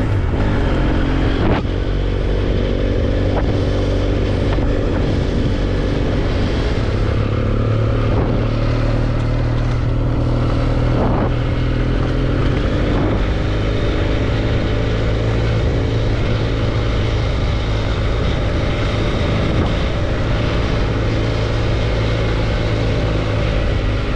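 Motorcycle engine running steadily at a constant speed, an even drone that holds one pitch throughout.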